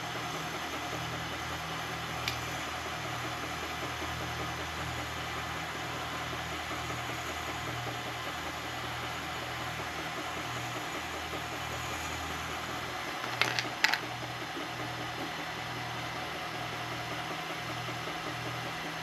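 Milling machine running steadily with its end mill cutting a slot in a carbon fiber handguard, with a low pulsing hum under the noise. A faint click about two seconds in and a quick pair of sharp clicks around thirteen to fourteen seconds in.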